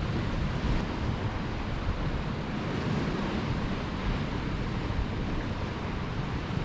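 Sea swell washing against the rocks, mixed with steady wind buffeting the microphone.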